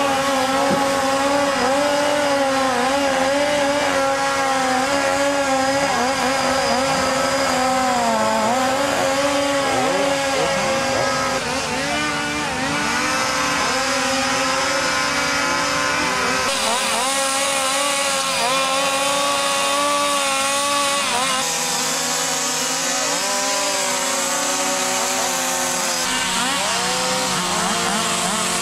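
Several two-stroke chainsaws running and revving up and down while carving wood, their pitches overlapping. The mix of saws changes abruptly a few times.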